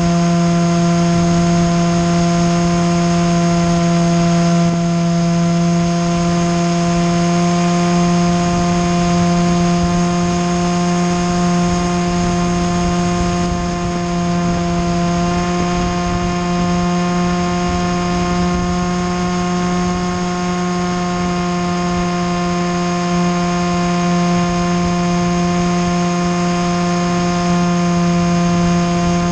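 Steady, unchanging drone of a small unmanned aircraft's motor and propellers in flight, heard from the camera mounted on it.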